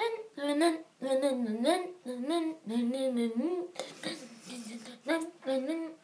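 A person humming a wavering, sing-song tune in short sliding notes, with a breathy stretch about two-thirds of the way through.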